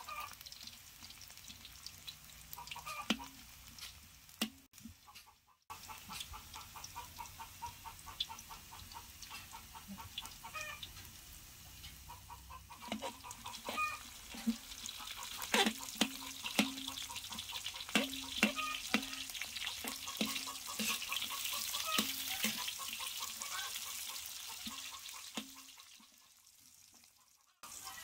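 Garlic, ginger and onion sizzling in hot oil in a wok, with a metal ladle scraping and clinking on the pan as it stirs. In the second half, short low calls repeat about twice a second in the background.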